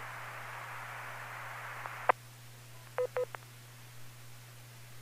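Open-squelch hiss from an FM ham radio receiver after a transmission ends, cut off by a sharp squelch click about two seconds in. A little after three seconds come two short electronic tone beeps. A steady low hum runs underneath.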